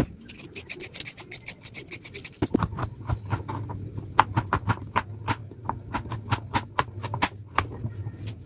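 Kitchen knife chopping a carrot into chunks on a plastic cutting board: a quick run of sharp knocks, several a second, with a low steady hum underneath.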